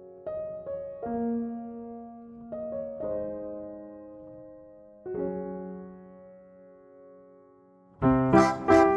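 Background piano music: soft chords struck every second or two and left to ring out. About eight seconds in, a much louder, fuller passage with deep bass comes in.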